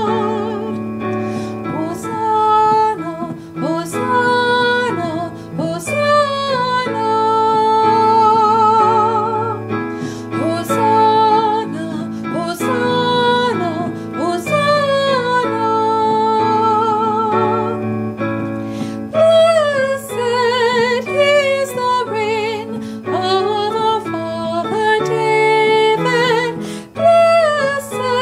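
A woman singing a slow sacred song with strong vibrato over sustained keyboard chords.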